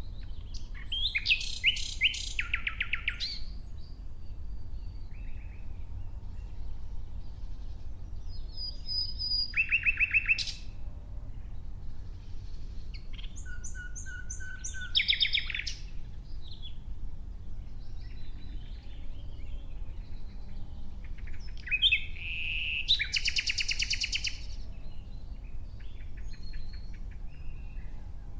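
Nightingale singing: four loud phrases of rapid repeated notes, trills and clear whistles, each separated by a pause of several seconds, with fainter bird calls between them.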